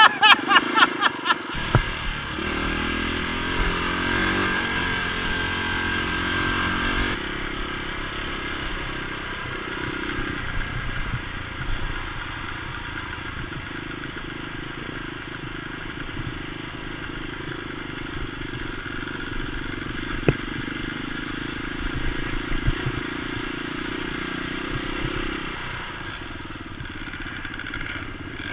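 Dirt bike engine running steadily as the bike rides along a rough trail, with a single sharp knock about twenty seconds in.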